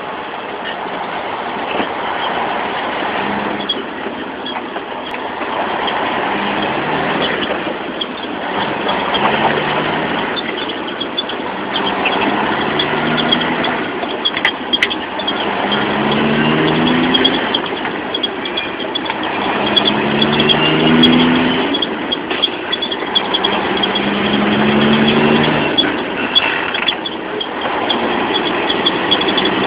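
1992 Peterbilt 379's Caterpillar diesel engine pulling the truck down the road, heard from inside the cab over road and wind noise. The engine note climbs and then drops back every few seconds as the truck works up through the gears.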